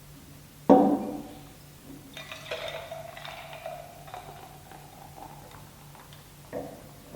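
A glass set down hard with a short ringing knock, then liquid poured into a glass, its tone rising a little as the glass fills; another knock near the end.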